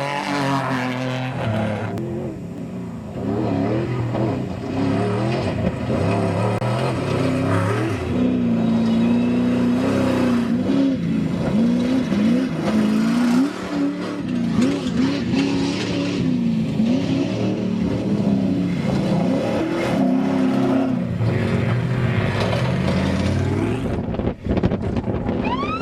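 Off-road desert race truck engines running hard, their pitch repeatedly rising and falling as they accelerate and ease off.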